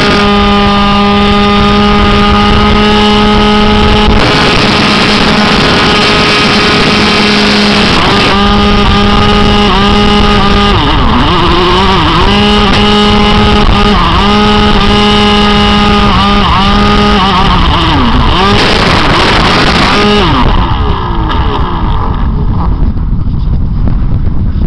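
Motor and propeller of a remote-control plane, heard from a camera strapped to its fuselage. It drones at a steady pitch, then from about a third of the way in the pitch repeatedly dips and climbs back as the throttle is eased and opened. Near the end the motor cuts out, leaving wind rushing over the microphone as the plane glides.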